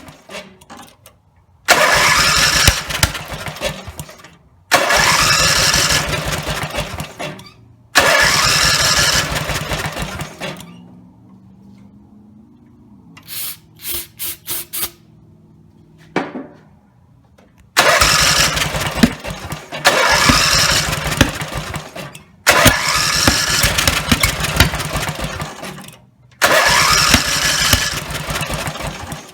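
Briggs and Stratton 17 HP riding-mower engine being cranked over and over in bursts of two to four seconds without catching, a sign of the rebuilt engine's failure to start. There is a pause of several seconds midway, with a faint low hum and a few sharp clicks.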